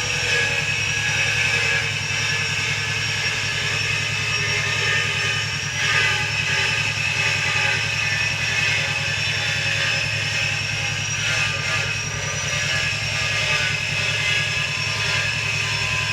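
A steady low machine hum with a fast, even pulse, with several steady high whining tones above it.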